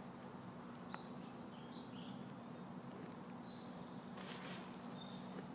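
Birds chirping, a few short high trills over a faint steady outdoor background hum, with a brief rush of hiss about four seconds in.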